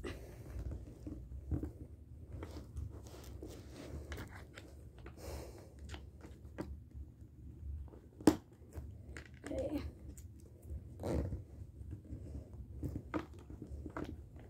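A packed bag being handled and stuffed: irregular rustling and crunching with small clicks, and one sharp knock about eight seconds in.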